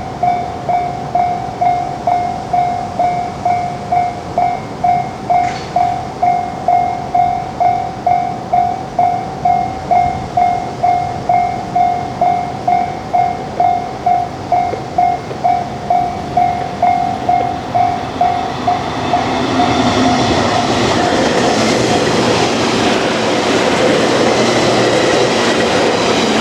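Japanese railway level-crossing warning bell ringing its kan-kan tone at about two strokes a second. About nineteen seconds in, a train arrives and runs past over the crossing, its rumble and wheel noise growing loud enough to cover the bell.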